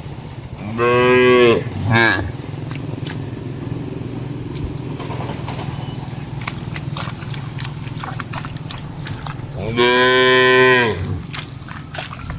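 A cow mooing: a long moo about a second in with a short one right after it, then another long moo near the end, over a steady low hum.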